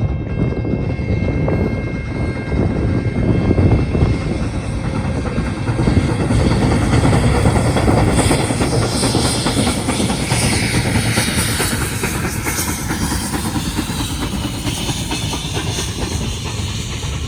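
Steam train passing: a steady heavy rumble and wheels clattering on the rails, with a hiss of steam swelling in the middle and easing off toward the end.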